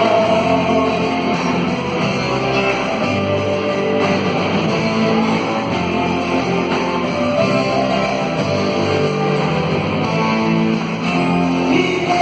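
Worship band music in an instrumental passage without singing, guitar to the fore over a steady band accompaniment.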